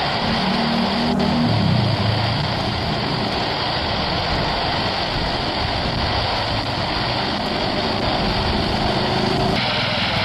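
Jet engines of an Airbus A320 airliner running loudly as it rolls out on the runway just after touchdown, a steady rushing engine noise. The sound changes abruptly near the end.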